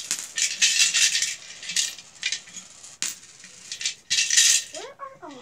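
Coins rattling inside a piggy bank as it is shaken, in repeated short shakes with pauses between them. A short voice sound comes in near the end.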